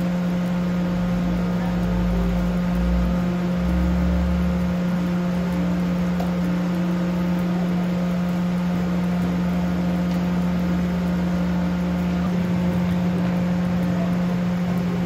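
Steady low machine hum with a deeper rumble that swells about two to five seconds in.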